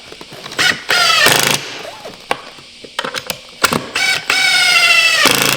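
A power screwdriver drives screws into a stool leg in two runs, about a second in and again near the end. Its whine sags in pitch as each screw bites into the wood, with knocks of wood and tool between the runs.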